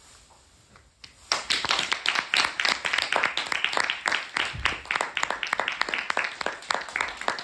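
Audience applauding, breaking out about a second in after a near-quiet pause and continuing as dense, steady clapping.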